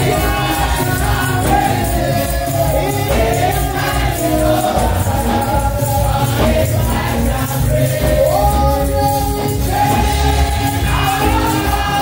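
Live gospel praise music: a group of women singing together over a band with a heavy, steady bass beat, with tambourines shaking along.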